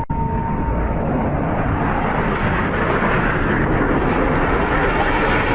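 Jet aircraft engine noise: a loud, steady rushing with no change in pitch, with a faint thin tone in the first second.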